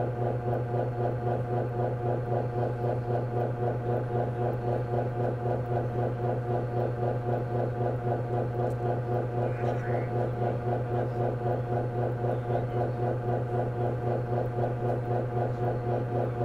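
A steady, low electronic drone with a stack of higher tones above it that throbs evenly about four times a second, unchanging throughout.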